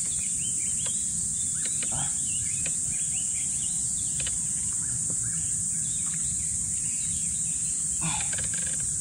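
Steady high-pitched insect chorus, with short chirps scattered through it.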